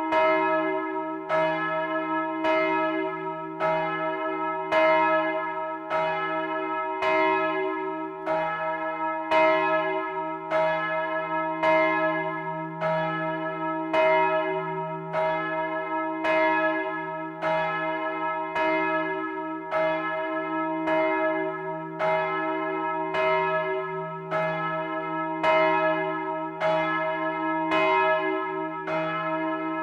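Swinging church bells from a seven-bell peal ringing steadily, with regular strikes about three every two seconds over a sustained deep hum.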